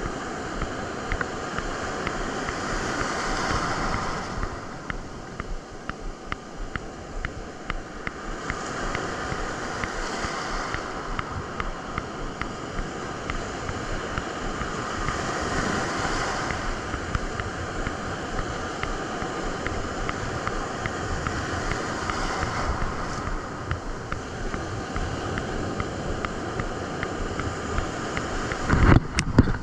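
Ocean surf breaking on a beach, the wash swelling and easing every several seconds, with wind on the microphone. A short, loud low thump comes near the end.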